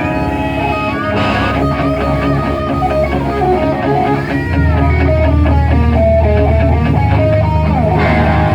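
Live rock band playing with an electric guitar picking a busy melodic line. A heavy low bass part comes in about halfway through.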